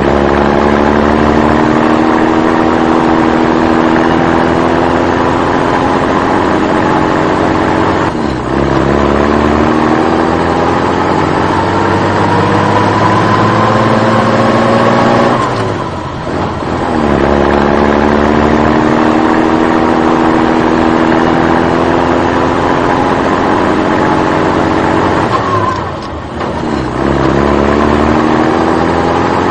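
Truck engine sound effect: the engine note climbs steadily in pitch for several seconds, drops back with a short dip about every eight seconds, as at a gear change, and climbs again.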